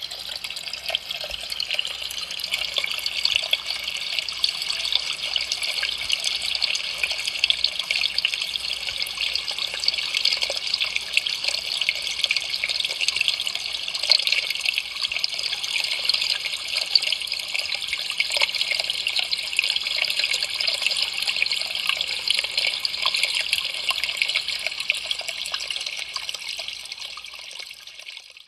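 Water from a pool's spillway fountain splashing and trickling steadily, fading out near the end.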